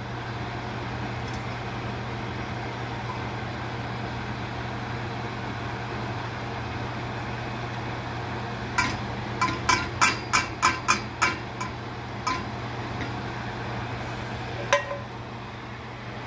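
Stainless steel sauté pan and spatula clinking against a small stainless gravy boat as the last of the gravy is scraped out: about halfway through, a quick run of about ten sharp metal clinks, then a few single knocks, over a steady low hum.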